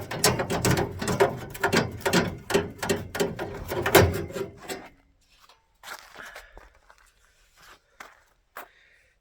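Ratchet wrench clicking rapidly for about five seconds, backing out the small bolts that hold the grill, then a few separate quieter clinks and knocks of metal parts being handled.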